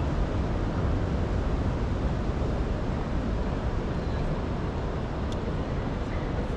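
Steady city street ambience dominated by a low rumble of traffic, with a single brief click a little after five seconds in.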